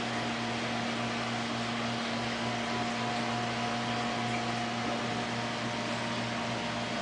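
Steady hum and hiss of the aquarium's pumps and filtration running, a few constant tones over an even rush, with no change.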